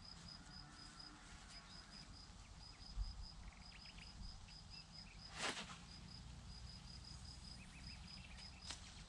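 Crickets chirping steadily in short, even pulses, about four a second. About three seconds in there is a low thump, and about five and a half seconds in a brief swish as the spod rod is swung through a long-distance cast.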